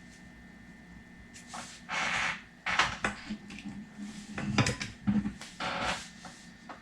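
Handling noises from small shifter parts and bushings being picked up and worked by hand: several short rustles with a few sharp clicks around the middle.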